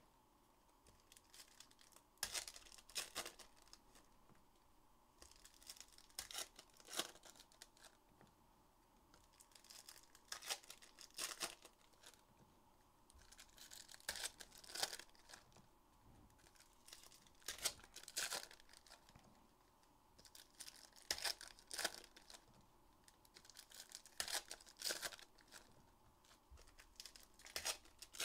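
Trading card pack wrappers being torn open and crinkled, in short rustling bursts every second or two with brief pauses between.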